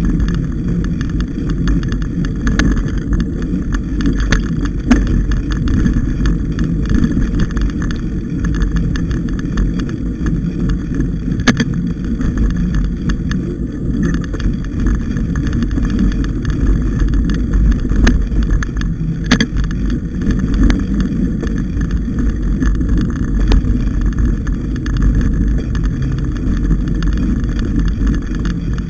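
Mountain bike ridden along a dirt forest singletrack: a steady low rumble of tyres and wind buffeting the microphone, with a few sharp clicks and knocks as the bike rattles over bumps.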